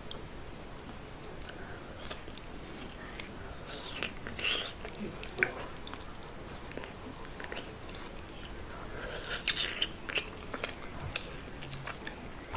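A person biting and chewing food close to the microphone, with irregular crisp crunches and clicks. The loudest cluster comes about three quarters of the way through.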